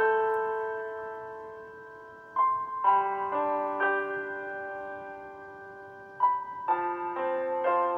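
Slow piano background music: sustained notes and chords struck every second or so, each ringing and fading away.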